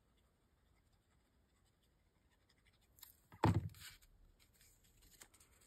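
Faint paper handling, then a single thunk about three and a half seconds in as a plastic glue stick is set down on the cutting mat, followed by light rustling of kraft paper being pressed down.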